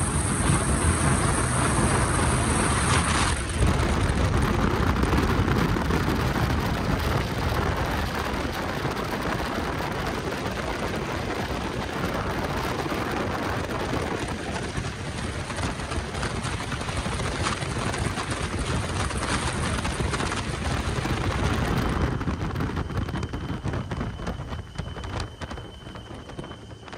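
On board a 42-foot Fountain Lightning speedboat at speed: rushing wind and water spray over the steady run of its three Mercury Racing big-block V8 engines. The noise drops off over the last few seconds, and a faint steady high whine comes in.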